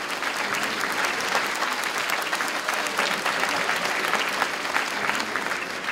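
A large audience applauding, many hands clapping together, the clapping tapering off near the end.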